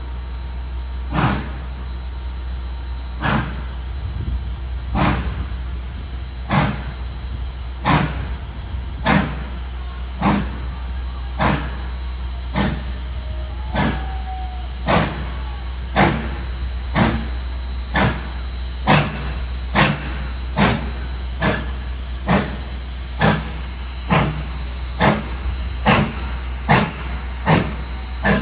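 Steam locomotive's exhaust chuffing as it works up a grade hauling a heavy train. The beats come about two seconds apart at first and quicken steadily to roughly one a second as the engine picks up speed.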